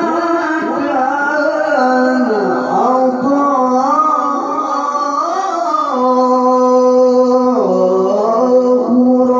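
A man's voice reciting the Qur'an in the melodic tilawah style, one long melismatic phrase with slow ornamented turns in pitch, held on a sustained note later on and dipping briefly near the end.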